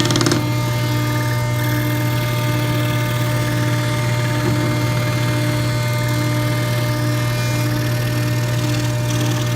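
SCR-70 scroll saw running steadily, its motor humming and the blade reciprocating at constant speed, with a short knock just at the start.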